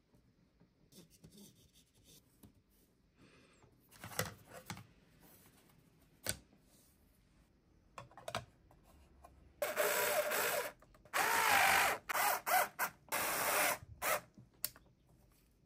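Electric screwdriver whirring in several short bursts, its motor pitch bending under load, as it drives screws into 3D-printed plastic. Before it come a few faint clicks and rubs of plastic parts being fitted together, one sharp snap among them.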